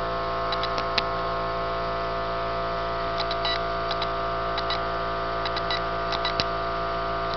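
Steady electrical hum from a home-built CNC plasma table and its plasma cutter, several tones held level, with scattered light ticks.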